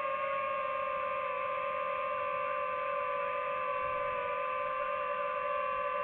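Drone motors and propellers whining steadily while hovering and drifting, the pitch wavering only slightly with small throttle changes.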